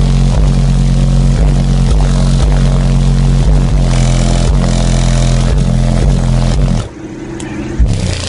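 Very loud bass-heavy music played through a car audio system of sixteen Sundown Audio Nightshade 12-inch subwoofers, the deep bass notes stepping in pitch every half second or so. The level drops sharply about seven seconds in.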